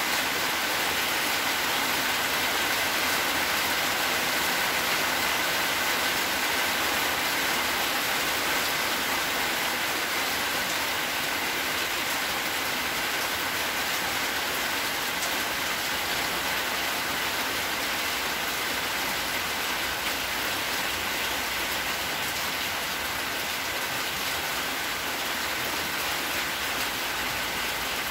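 A steady, even hiss of noise, like rain, with two faint, steady high tones running through it.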